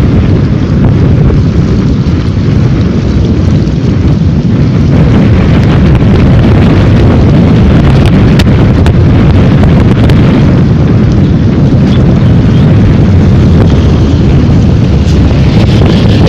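Wind buffeting the microphone: a loud, steady low rumble with no clear pitch and a few brief clicks about halfway through.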